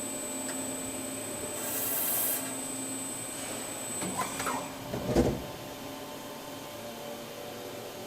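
Industrial machinery running with a steady hum, a short hiss about two seconds in, then rattling and scraping that ends in a heavy thud about five seconds in.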